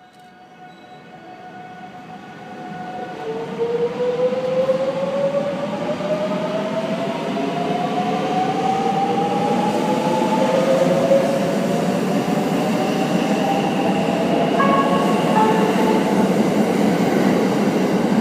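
Electric limited express train pulling away and gathering speed. The motor whine rises steadily in pitch as it accelerates, over running noise that grows louder in the first few seconds and then holds.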